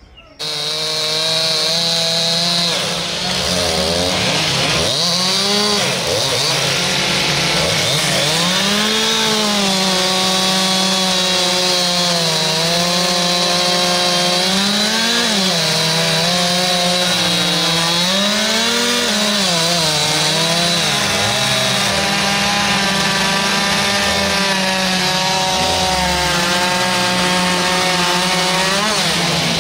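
Two-stroke chainsaw running at high revs while carving into wood. Its engine note dips and recovers again and again as the chain bites into the wood and is eased off. The sound cuts in abruptly just after the start.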